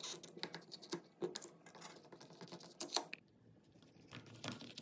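Knife cutting through set chana dal halwa on a steel plate: faint, irregular scrapes and clicks as the blade meets the plate, with the loudest click about three seconds in.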